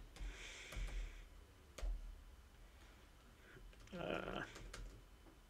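A few faint, separate computer keyboard key presses, with a brief murmur of a voice about four seconds in.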